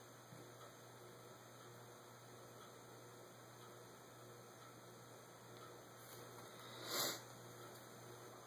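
Near silence: a low, steady electrical hum, with one brief soft noise about seven seconds in.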